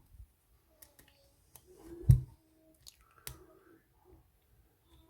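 Lock pick and tension wrench working the pins of a Winkhaus euro cylinder lock: scattered sharp metallic clicks, with one louder dull knock about two seconds in.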